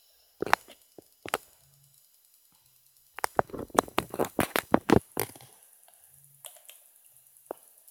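Handling noise: two sharp knocks in the first second and a half, then a quick run of taps and clicks lasting about two seconds from around three seconds in, and a single click near the end.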